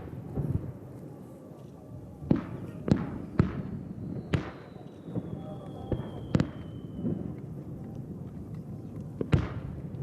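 Distant aerial fireworks bursting: about seven sharp bangs at uneven intervals, each with a short echoing tail, over a low steady rumble. A faint high whistle falls slowly in pitch through the middle.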